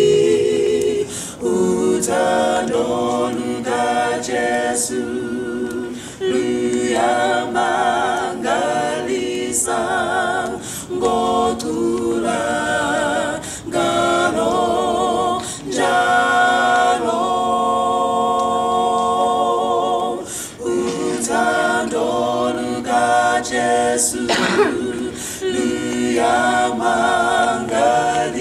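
Mixed vocal quartet of two men and two women singing a hymn a cappella in harmony, phrase by phrase with short breaks for breath.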